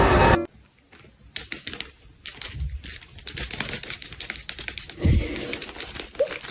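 Music cuts off, then a run of quick, irregular light clicks and taps, with a low thump about five seconds in.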